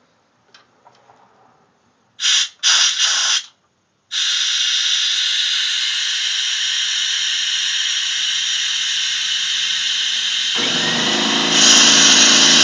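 Pneumatic spring compressor's air valve hissing: three short blasts of compressed air, then a steady hiss of air flowing. About ten seconds in, a motor starts running under the hiss.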